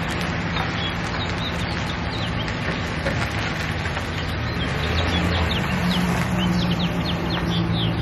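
A Ram 1500 pickup's engine running as the truck pulls out and drives off, its hum growing louder from about five seconds in. Small birds chirp repeatedly over it.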